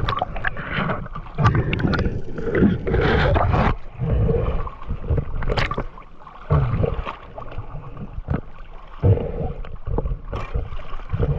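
Seawater sloshing, splashing and gurgling around a camera at the sea surface as it dips in and out of choppy water, coming in uneven surges.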